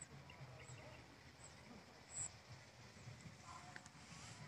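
Faint low buzzing drone, wavering unevenly in strength, from a kite's sendaren hummer made of gift ribbon (mika pita kado), flying high.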